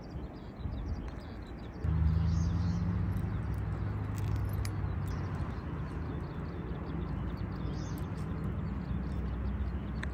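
A steady low mechanical hum, like an engine running, starts suddenly about two seconds in and carries on. Small birds chirp briefly above it.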